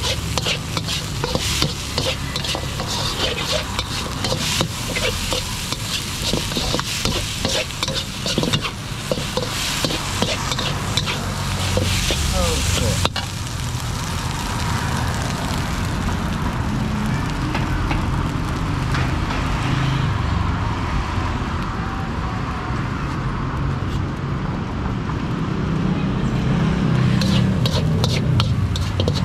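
Metal ladle scraping and clanking against a steel wok while fried rice is stir-fried, with sizzling. The strikes come thick and fast in the first half, thin out after a cut about halfway through over a steady low rumble, and pick up again near the end.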